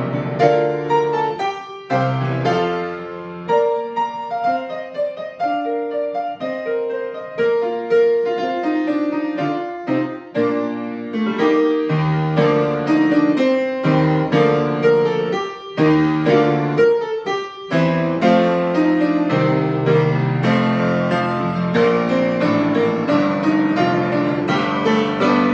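Solo piano playing a hymn arrangement: a melody over full chords, the struck notes ringing on into one another.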